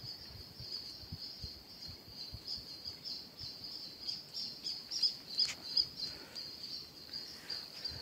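Forest ambience: a steady, high-pitched trilling drone of insects, with a few short bird chirps, the clearest about halfway through. Faint low knocks are scattered through the first half.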